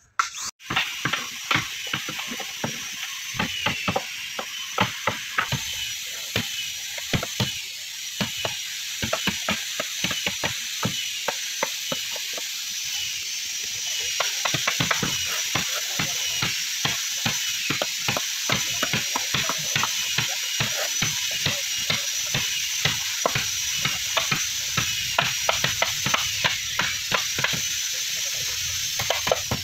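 Hand tools striking wooden boat planks: chisels driven by hammers knock into the timber in quick, irregular strokes, at times two workers at once. A steady high thin tone and hiss run underneath.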